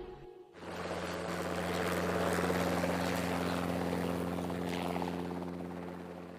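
Aircraft flying overhead: a steady engine drone with a low hum. It comes in about half a second in, swells gently, and fades out near the end.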